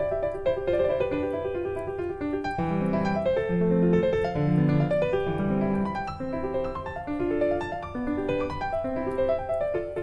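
Background piano music: a flowing melody of short notes over lower chords.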